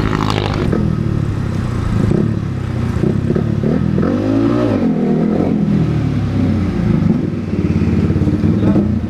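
Yamaha R15's single-cylinder engine running through an SC Project aftermarket exhaust with its silencer insert fitted, the revs rising and falling once about four seconds in.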